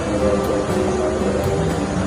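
Background music with a melody of held notes, over a steady rushing noise.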